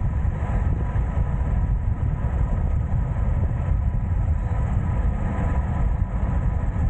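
Wind buffeting the microphone during a fast downhill ride, a steady low rumble with no breaks.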